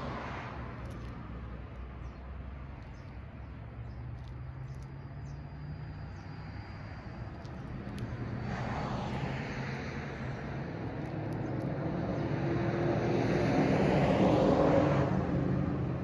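Road traffic: cars passing by, one swelling and fading about halfway through, then a louder one building to its loudest shortly before the end and fading away.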